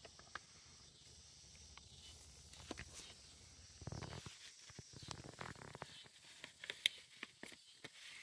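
Faint crackling and rustling of decal transfer tape being peeled back off a vinyl sticker, with scattered small clicks as the paper lifts and fingers rub it down.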